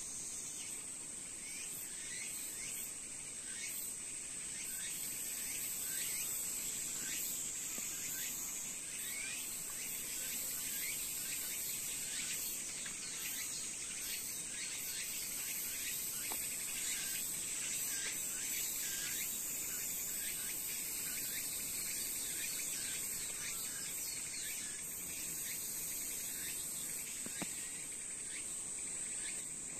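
Steady high-pitched outdoor insect chorus, with short falling chirps repeating throughout.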